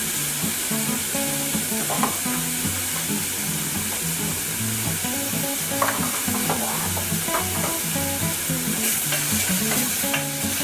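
A tomato, onion and spice sauce sizzling in a pan while being stirred, with a few light clicks of the spoon against the pan.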